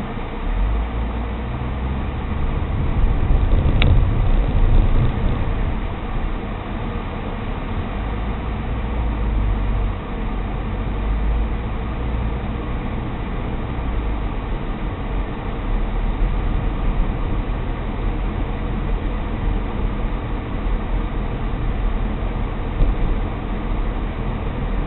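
Car driving, with a steady low road and engine rumble heard from inside the cabin that swells briefly a few seconds in. There is a single sharp click about four seconds in.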